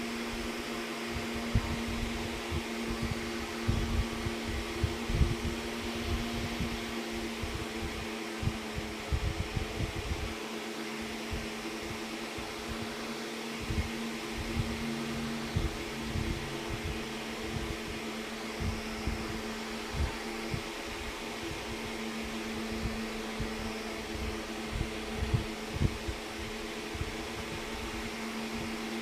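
Steady mechanical hum with a few held low tones, over irregular soft low thumps.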